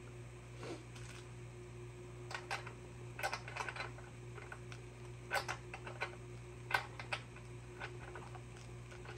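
Scattered clicks and clinks of a metal spark-plug wrench being worked as a new spark plug is threaded into a chainsaw's cylinder head, in small clusters over a steady low hum.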